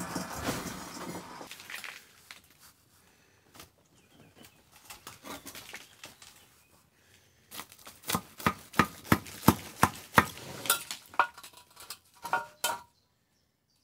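An electric hoist motor hums for the first two seconds and fades out. From about halfway in, a brick is tapped down into fresh mortar and checked with a spirit level: a run of sharp taps and clinks, two to three a second, that stops abruptly near the end.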